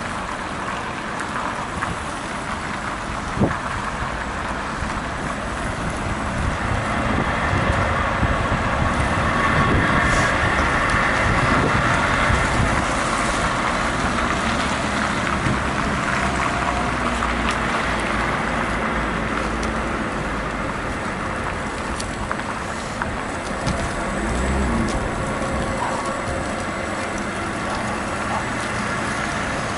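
Wind rushing over the microphone of a moving electric unicycle, mixed with road and traffic noise, swelling louder for several seconds before settling back; one sharp knock early on.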